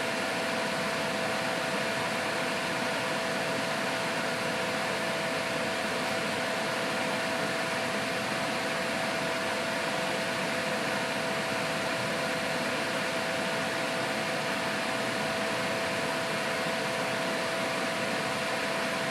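Steady whirring noise with a constant two-note hum, like a small fan running, unchanging throughout.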